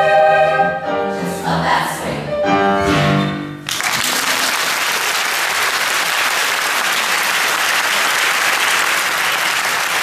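Children's choir singing the closing phrases of a swing number with piano, breaking off sharply a little over a third of the way in. An audience then bursts into steady applause that carries on to the end.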